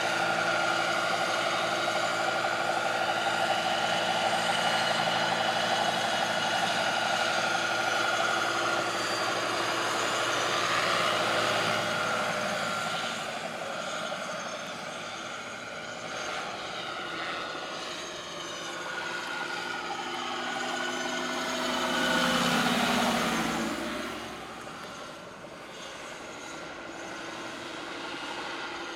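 Large-scale RC Mil Mi-8 model helicopter in flight: a steady mechanical whine with rotor noise, loud while it hovers close and fading as it flies off. About 22 seconds in it swells on a closer pass, its pitch dropping as it goes by, then falls away quieter.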